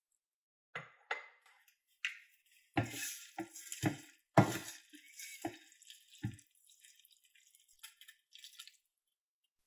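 Tongs knocking and clicking against a stainless steel frying pan as spaghetti is tossed, a series of sharp knocks, the loudest about four seconds in. Near the end, water poured into the pan makes a faint hiss.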